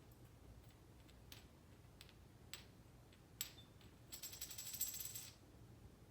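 A coin on a hard surface: a few single faint clicks, then a rapid metallic rattle lasting about a second as the coin clatters and settles.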